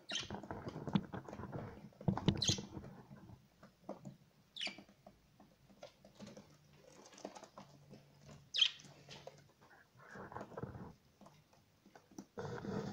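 Young budgerigars scratching and shuffling on the floor of a brooder box, with scattered soft clicks and rustles and a few short high squeaks.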